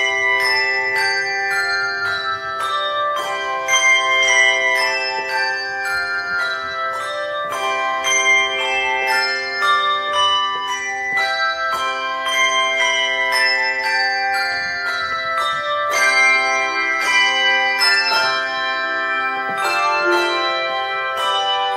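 Handbell choir playing a piece: struck bell notes and chords in quick succession, each ringing on under the next.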